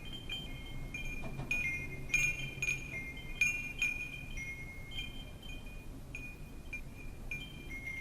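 Wind chimes ringing, struck irregularly several times a second, their few high notes overlapping and sustaining, over a faint low rumble.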